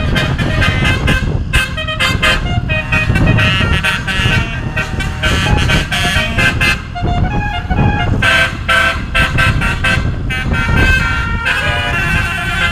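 Multi-tone basuri 'telolet' horn playing a quick tune of short notes that step up and down in pitch, over a steady low rumble.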